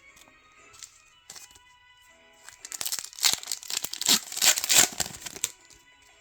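Foil booster pack wrapper being torn open and crinkled: a loud crackly ripping and crinkling for about three seconds, starting a little before halfway through, over faint background music.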